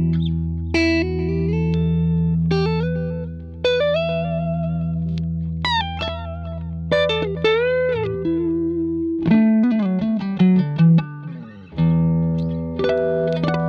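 Electric guitar, a Telecaster played through a compressor pedal into a Vox AC30 amp, playing melodic single-note lines with string bends over a low note that rings on. About nine seconds in it switches to short, choppy chords, then returns to long sustained notes near the end.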